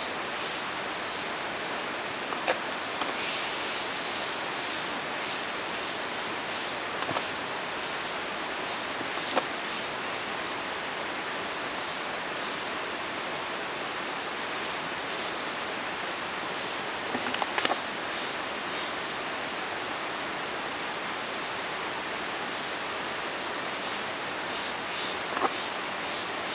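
Black bear foraging at a rotten log for insects: a handful of short, sharp snaps and crunches scattered through, over a steady rushing hiss.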